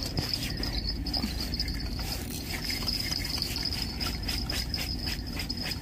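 Spinning reel on a surf casting rod being cranked to bring in a hooked fish: a steady high whine with even ticking, about four a second.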